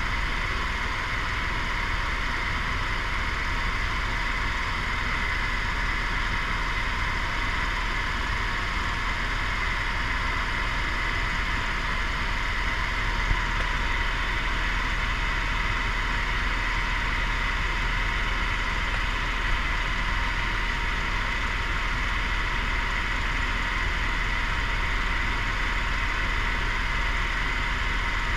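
Tour helicopter in flight heard from inside the cabin: steady, unbroken engine and rotor noise with a low hum beneath.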